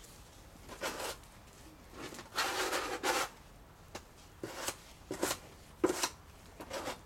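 Steel spatula scraping across wet adhesive, pressing and smoothing reinforcing mesh on a window reveal. About six short rasping strokes, the longest about two and a half seconds in.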